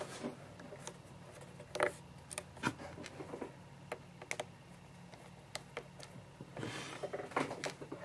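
Small screwdriver turning out the bottom-case screws of a white 2010 MacBook: faint scattered clicks and light scrapes of the bit in the screw heads, over a low steady hum.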